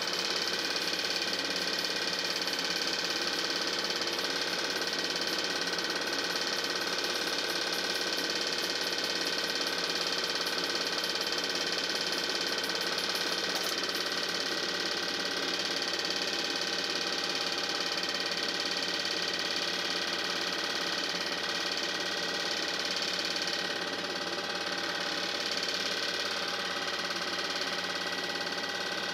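The steady, even running of an 8 mm film projector's motor and mechanism, unchanging throughout.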